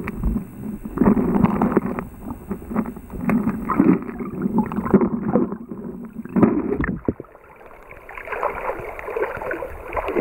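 Muffled sloshing and bubbling of river water around a camera held underwater, surging unevenly, with a few sharp knocks from handling about six to seven seconds in.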